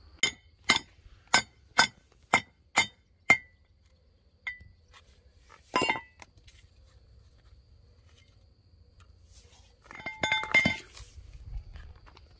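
Spark plug being broken on a steel brake disc: seven sharp ringing metal strikes about half a second apart, then two more near the middle, as the porcelain insulator is cracked free. Near the end comes a burst of light clinking as the broken ceramic pieces are handled.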